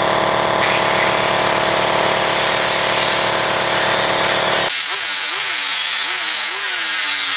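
Air-powered die grinder with a carbide burr grinding welded steel, a steady whine with hiss. A deeper steady machine drone running alongside stops abruptly about two-thirds of the way through, leaving the grinder's wavering whine and hiss.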